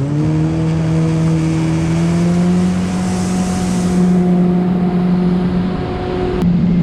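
Yamaha WaveRunner personal watercraft engine speeding up and then running steady at cruising speed, over a hiss of rushing water and wind.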